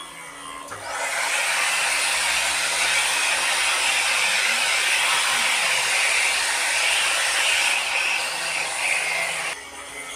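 CNC router spindle driving a home-made fly cutter (face milling cutter) across the work on a very fine finishing pass, about 0.015–0.02 mm deep. A loud, even cutting noise starts about a second in and stops abruptly near the end, over a steady high whine.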